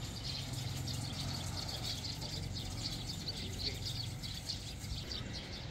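Birds chirping busily, many short high chirps overlapping without pause, over a steady low rumble.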